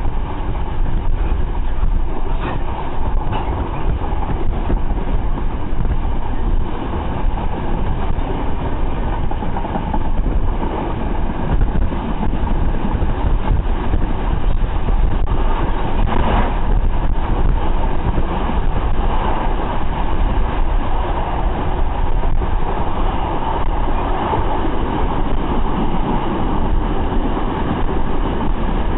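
Passenger train running at speed, heard from inside a coach: a steady rumble of wheels on rails, with a brief clack about two seconds in and again about sixteen seconds in.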